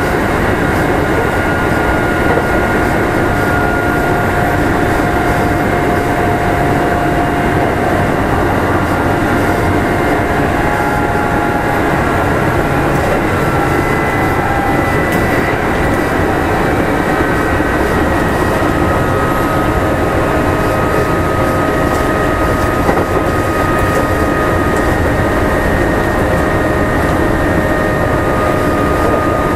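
Kintetsu 2800 series electric train heard from inside motor car Mo 2815 running between stations: a steady rumble of wheels on the rails, with the traction motors and gears whining in several steady tones that drift slowly in pitch.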